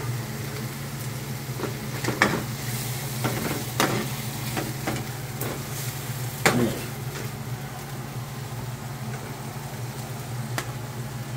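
Oil sizzling in a stainless steel frying pan as pieces of fried dried beef are lifted out with a slotted spatula, which knocks and scrapes against the pan several times, loudest about six and a half seconds in. A steady low hum runs underneath.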